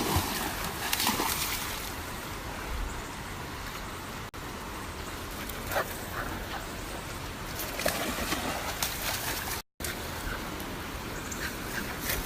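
Steady rushing of a stream's flowing water, with a few faint splashes, cut briefly by a dropout about ten seconds in.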